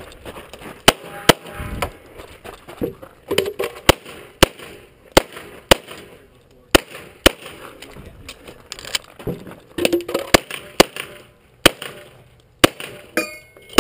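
A 9mm EAA/Tanfoglio Witness Match pistol firing a course of fire: a long string of sharp shots. They come irregularly, some in quick pairs about half a second apart and others after gaps of a second or so.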